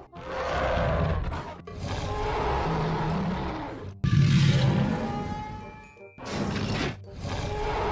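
A run of cartoon creature roar and growl sound effects, several in a row with short gaps, each swelling and fading; the loudest begins sharply about four seconds in.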